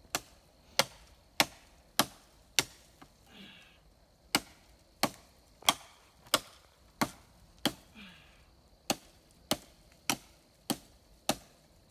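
Hatchet chopping into a thin tree branch: sharp, even blows about one and a half a second, with two short pauses.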